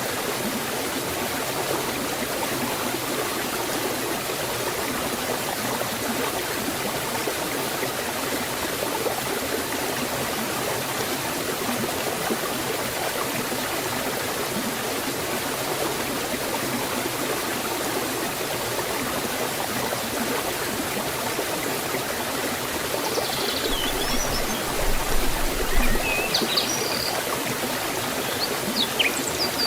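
Water rushing steadily down a small forest waterfall and stream, with a few short high chirps near the end.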